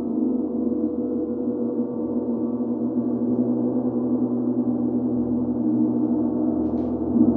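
Large hanging gong stroked with a soft mallet, sounding as a continuous dense wash of many overlapping ringing tones with no distinct strikes, swelling slightly towards the end.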